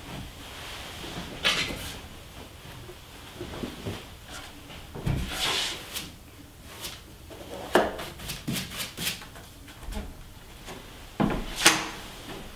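Clothing rustling and wooden chairs knocking and creaking on a wooden floor as people move about: scattered short knocks and swishes, with a cluster of quick knocks in the second half.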